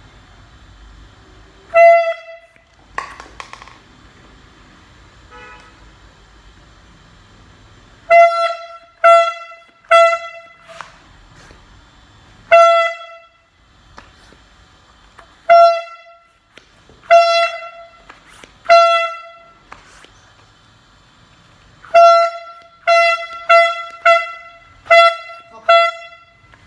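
Handheld canned air horn blasted in short bursts, more than a dozen times. Each blast is a single steady, loud honk about half a second long, and the blasts come in quicker succession near the end.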